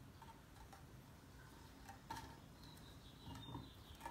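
Faint, scattered clicks and light scrapes of a tweeter horn being handled and twisted back onto its compression driver.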